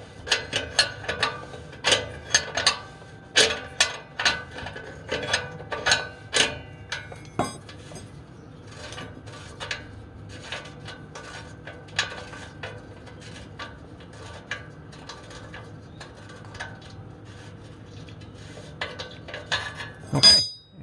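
A 7/8 wrench clicking and clinking on a downstream oxygen sensor as the sensor is unscrewed from the exhaust pipe, several sharp metallic clicks a second for the first several seconds. Then fainter scattered ticks and scraping as the sensor is turned out by hand, with a louder knock near the end.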